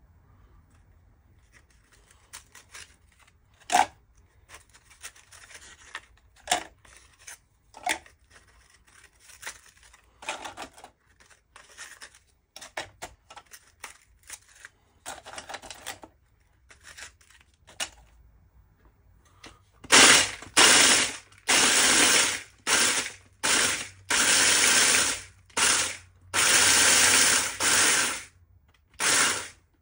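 Light clicks and rustling as graham crackers are handled and set into a small food chopper's plastic bowl. Then the electric chopper runs in about ten short pulses, its blade grinding the crackers into crumbs.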